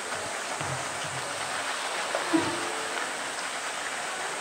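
Pool water splashing and sloshing as a polar bear thrashes about with a bamboo tube in it. There are a few low thuds, and one short, louder sound about two seconds in.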